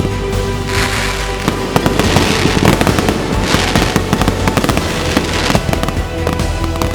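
Fireworks going off: dense rapid popping and crackling in several swells, over background music.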